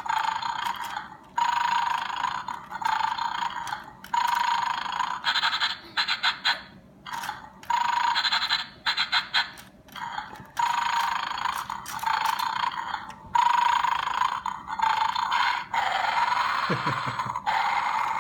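Electronic toy dog in a 'bad dog' bone-stealing game playing a looping sound effect through its small speaker, repeating in blocks about a second long with brief gaps, while it is 'asleep' and the bones are being taken. A few light plastic clicks come from the bones being lifted.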